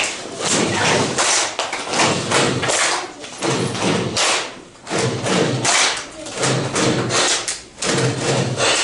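A classroom full of children's voices talking and calling out at once, with thumps among them.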